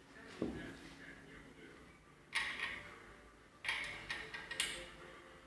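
Metal parts and tools of a hydraulic power-steering box knocking and clinking as they are handled on the workbench: four separate sharp knocks, each with a short ring.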